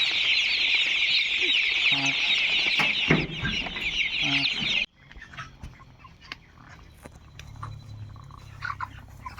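A crowd of broiler chicks peeping in a dense, high-pitched chorus of many overlapping chirps. After about five seconds it cuts off abruptly to a much quieter stretch with scattered clicks, a few chirps and a low hum.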